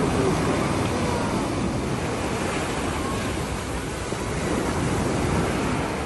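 Sea surf breaking and washing up the beach at the water's edge: a steady rushing wash of waves and foam that swells a little near the start and again about five seconds in.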